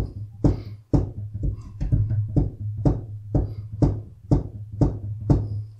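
Clinical percussion by hand: a fingertip striking the middle finger of a hand pressed flat on a wooden tabletop, wrist-driven taps at an even pace of about two a second, each a short thud. A steady low hum runs underneath.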